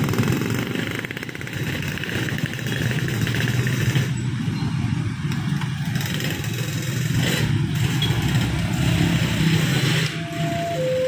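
Vehicle engines running steadily, low and continuous. Near the end a steady two-note tone starts.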